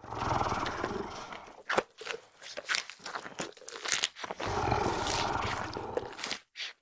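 Dinosaur roar sound effects: a rough, noisy roar at the start and another a little past the middle, with a run of sharp clicks and snaps between them.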